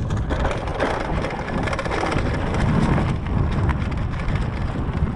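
Mountain bike tyres rolling fast over dry leaf litter on a dirt singletrack, a dense crackle, with wind buffeting the microphone as a low rumble.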